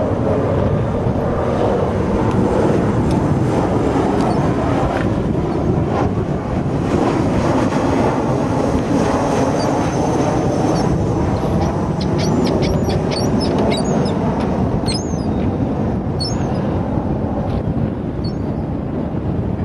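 Boeing 737 airliner on final approach with gear down, passing low overhead: a steady jet engine rumble with a faint high whine that drops a little in pitch about halfway through.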